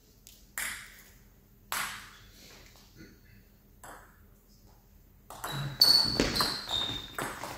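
Table tennis ball: a few single taps during serve preparation, then from about five seconds in a rally of quick clicks as the ball strikes bats and table, with brief high squeaks from shoes on the hall floor.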